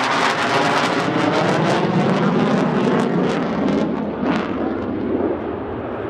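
Jet noise from a MiG-29 Fulcrum's two Klimov RD-33 turbofans as the fighter flies past, a loud rushing sound with crackling in it. About two seconds in it deepens, and it eases slightly toward the end as the crackle thins out.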